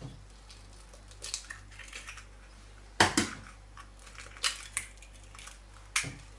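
Eggs cracked against the rim of a glass bowl: two sharp taps about three seconds in, followed by a few lighter clicks of shell.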